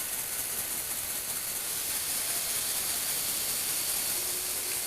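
Lego Technic incline car's motor and plastic gear train running steadily, a continuous high, hissy whirr.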